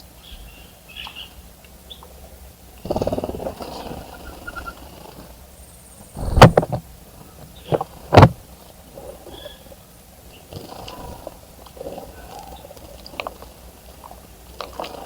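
Birds bathing in a bird bath, making short bursts of splashing and wing-fluttering: a longer burst about three seconds in and two sharp, louder splashes a couple of seconds apart midway. Short, faint bird chirps sound in between.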